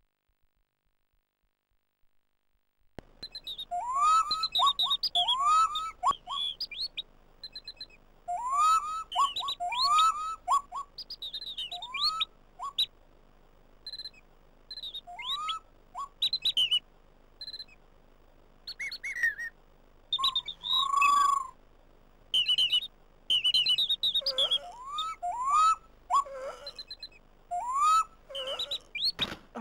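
Birdsong played back by the Amiga 500 demo: phrases of short, quick rising chirps with brief pauses between them, beginning about three seconds in after silence, with one longer held whistled note later on.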